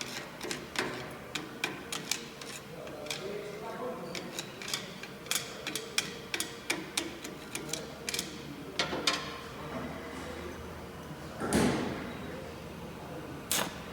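Irregular sharp taps and clicks, a few a second, over a faint steady low hum, with one louder rushing burst lasting about half a second about two-thirds of the way in.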